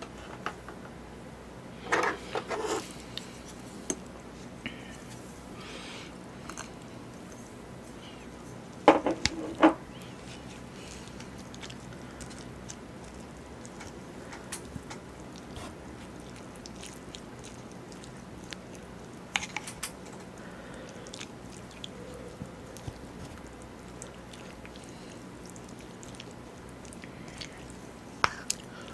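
Close-miked eating sounds: chewing, and a wooden spoon stirring and knocking against an earthenware ttukbaegi bowl of bulgogi and rice. A few sharp clicks stand out, loudest about nine seconds in, over a steady low background.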